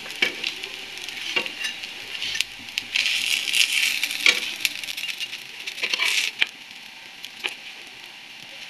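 Bread rolls shallow-frying in hot oil in a nonstick frying pan, a steady sizzle, with scattered light clicks and scrapes of a metal spatula turning them. The sizzle eases off in the last couple of seconds.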